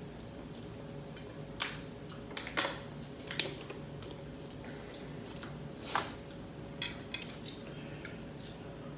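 Cutlery clinking and scraping against plates in several sharp, separate clicks, over a faint steady hum.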